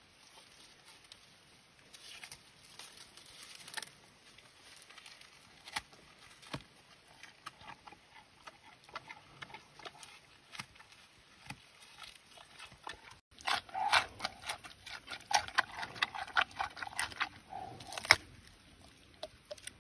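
Giant panda chewing bamboo: scattered crunches and snaps of leaves and stalks, then after a sudden cut about 13 s in, a louder, dense run of crunching that stops near the end.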